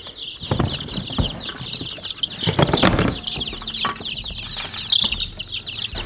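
Many baby meat chicks peeping nonstop in a high chorus in their brooder, with rustling and a few knocks as feed is shaken from a glass jar onto the straw bedding among them.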